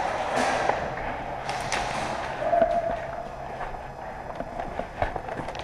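A few sharp cracks over a low background murmur: airsoft guns firing, one shot about half a second in and two in quick succession about a second and a half in.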